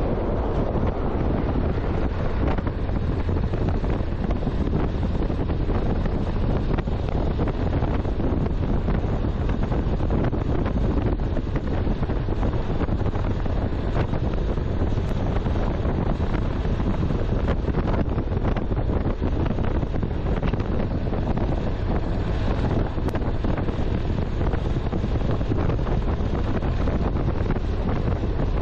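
Wind buffeting the microphone of a motorcycle moving at road speed: a steady, unbroken low rush of air and road noise.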